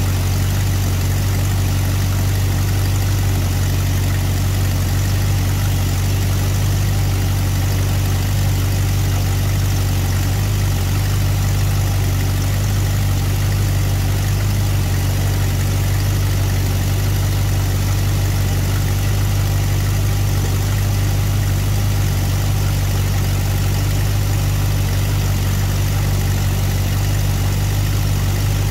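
Carbureted Mopar V8 idling steadily, with its vacuum advance plugged and its initial timing set at only about 1 degree, close to retarded, before the timing is advanced.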